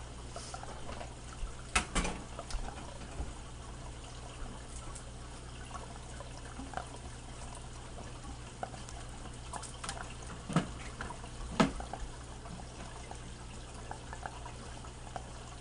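Steady trickle of water, like an aquarium filter's return flow, over a low hum, with a few sharp knocks about two seconds in and again near the middle.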